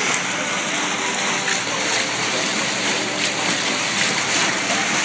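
Water rushing and splashing along the side of a sailing boat under way, a steady hiss with no engine heard.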